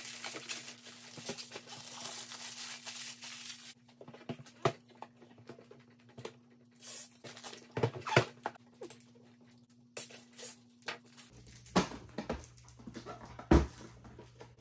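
Clear plastic wrap rustling and crinkling as it is pulled off a Sizzix Big Shot Switch Plus electric die-cutting machine, for about the first four seconds. Then come scattered taps and knocks as the plastic machine is handled and set down, with one louder knock near the end.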